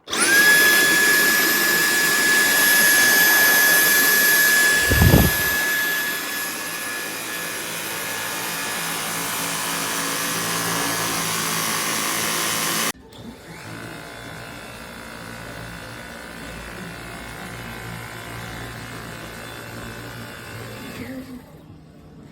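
Dyson V8 cordless stick vacuum running, a loud rushing motor sound with a high steady whine. About thirteen seconds in it drops suddenly to a much quieter running sound.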